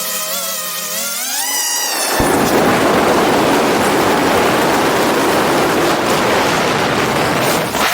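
DJI FPV drone's motors whining, rising in pitch as the throttle goes up. About two seconds in, a loud rushing wind buffet on the mounted camera's microphone suddenly drowns them out and lasts until near the end.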